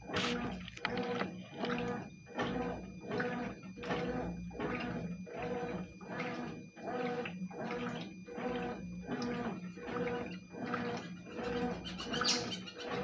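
Consul CWS12 washing machine agitating clothes in water: back-and-forth strokes, about two a second, each with a swish of water, over a steady motor hum.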